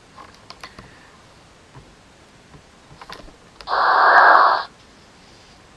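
Slide-transition sound effect: a burst of hissing, static-like noise about a second long, starting about three and a half seconds in and cutting off sharply. A few faint clicks come before it.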